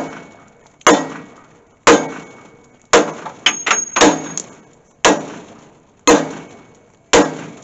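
Sledgehammer blows on steel, driving a new bushing into the loader-arm pivot bore of a Bobcat 873 skid steer. Heavy metallic clangs land about once a second, each ringing briefly, with a quick run of lighter knocks about halfway through. The bushing's end is mushrooming under the blows rather than seating flush.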